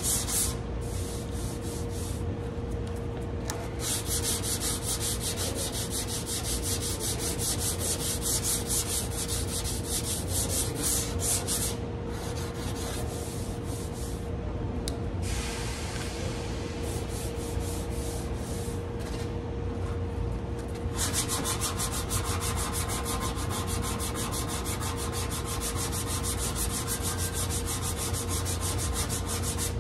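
Hand sanding of body filler on a car's front fender and rocker panel with sandpaper on a pad: quick back-and-forth strokes with a couple of short breaks.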